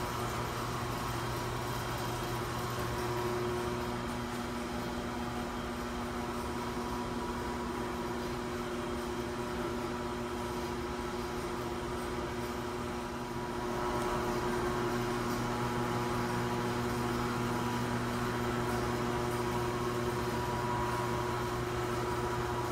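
Steady electric hum of a large shop ventilation fan running, a little louder from about fourteen seconds in.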